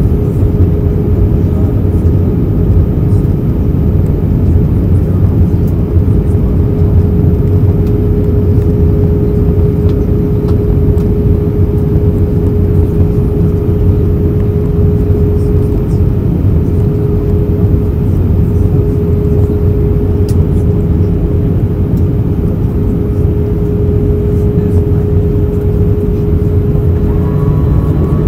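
Steady in-flight cabin noise of an Airbus A321-131, heard from a window seat: the rush of airflow and the drone of its IAE V2500 turbofan engines. A steady humming tone sits above the low rumble, and faint higher tones join near the end.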